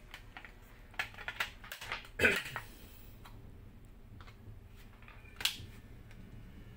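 Light plastic clicks and taps from a tinted helmet visor and its Pinlock anti-fog insert being handled and pressed into place: several separate clicks, the loudest about two seconds in and another about five and a half seconds in.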